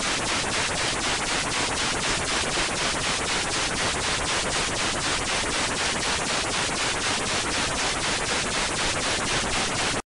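Static: a loud, even hiss with a faint regular pulse about four times a second. It starts and stops abruptly.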